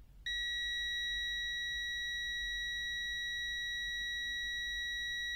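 Habotest HT123 multimeter's continuity beeper sounding one steady, high-pitched beep, starting about a quarter second in, as its probes rest on a 10-ohm resistor, which is below the meter's 50-ohm continuity threshold.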